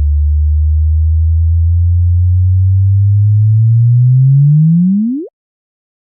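Gravitational-wave chirp of two neutron stars merging, rendered as sound: a deep hum that slowly rises in pitch, then sweeps sharply upward about five seconds in and cuts off suddenly at the moment of merger.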